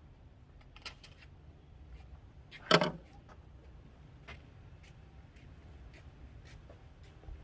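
A single loud knock just under three seconds in, with a few light clicks before and after, over a low steady rumble.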